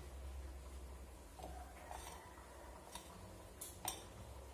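Faint, scattered clicks and light scrapes of a wooden spoon against a ceramic dish while steamed couscous is stirred and mixed, over a low steady hum.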